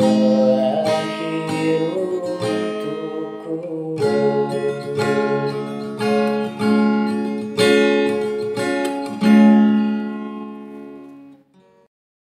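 Music: acoustic guitar strumming chords in a song's closing bars, the last chord ringing out and fading away near the end.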